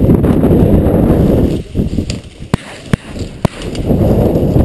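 Heavy rumbling noise of the camera being carried through corn stubble stops about a second and a half in. Then come three sharp shotgun shots in quick succession, about half a second apart, and the rumble of movement resumes near the end.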